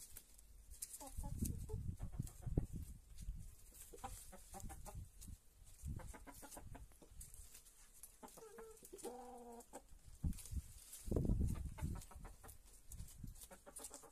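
Hens clucking as they peck at a pile of fresh greens, with short pecking clicks and low thuds among the leaves. One longer, drawn-out hen call comes about nine seconds in.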